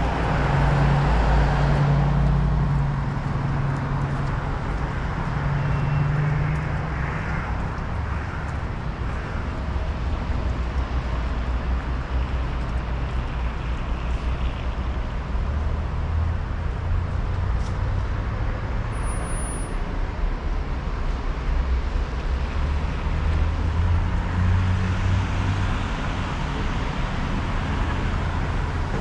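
City street traffic: motor vehicles running and passing, a steady low engine hum over road noise.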